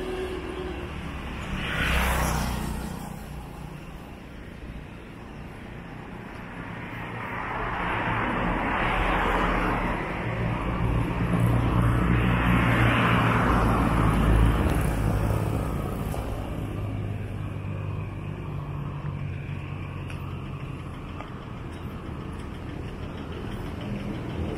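Road traffic: motor vehicles passing one after another over a steady engine hum, with a short pass about two seconds in and the loudest passes in the middle.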